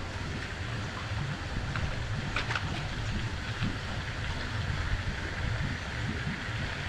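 Wind rumbling on the microphone over a steady outdoor hiss.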